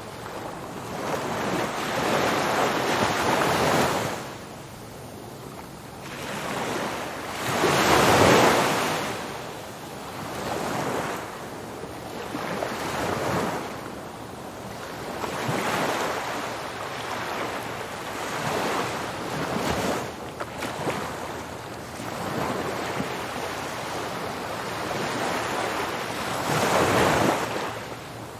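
Ocean waves breaking and washing on a beach, in swells that rise and fall every few seconds, one larger wave breaking about a third of the way in and another near the end.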